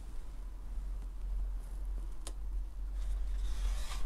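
Peel-and-stick foam seal strip being pressed by hand around the plastic outlet ring of a ventilation unit: faint rustling and handling, with one sharp click about two seconds in, over a steady low hum.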